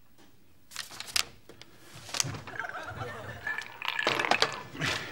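A few sharp clicks about a second in, then studio audience laughter building from about two seconds in.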